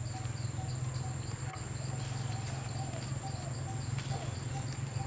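Forest ambience: a constant high insect whine with rapid, regular insect chirping, short repeated calls from a bird, and a steady low hum underneath.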